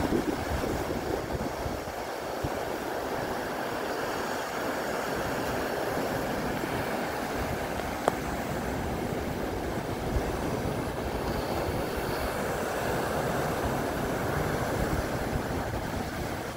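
Steady wash of surf breaking on the beach, with wind gusting on the microphone, and a single sharp click about halfway through.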